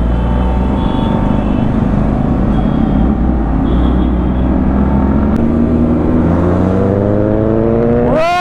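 Sport motorcycle engine running while riding, heard from the rider's own bike over road and wind noise; its pitch rises over the last couple of seconds as it accelerates. Right at the end a loud, rapidly pulsing sound begins.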